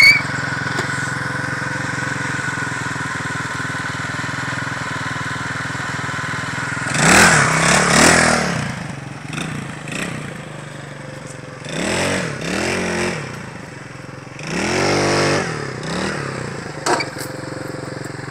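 Motor scooter's small engine running steadily, then revved hard three times in the second half, the pitch climbing and falling back each time.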